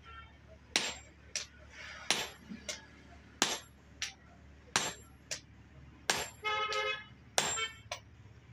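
Steady hammer blows on a steel top tool held with tongs on the eye of a forged adze (basula) on an anvil. About ten sharp metal strikes come roughly one every two-thirds of a second, and the last few ring on longer.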